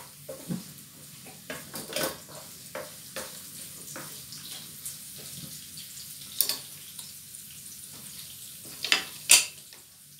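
Sliced onions sizzling in hot oil in a frying pan while a wooden spatula stirs them, giving scattered light scrapes and taps against the pan. Near the end come two sharp knocks on the cutting board as the utensils change hands.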